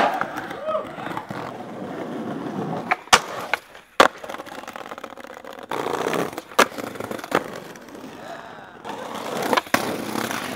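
Skateboard wheels rolling over rough pavement, with several sharp clacks of the board's tail popping and landing as tricks are tried.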